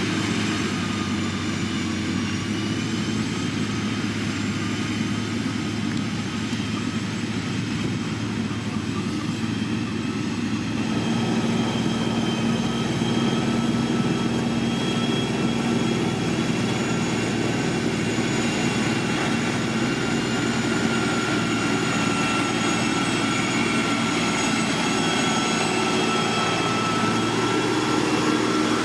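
Diesel engine of a heavy road-building machine running steadily under work, its pitch drifting slightly up and down, with a small change in tone about a third of the way in.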